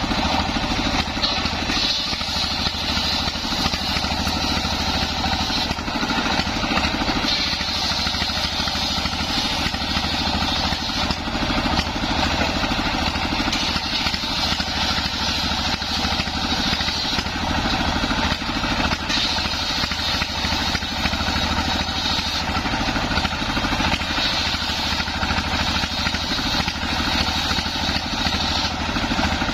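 Single-cylinder stationary diesel engine running steadily, belt-driving a large homemade table circular saw. The blade rips through waru wood boards, and a high cutting whine rises and falls with each pass.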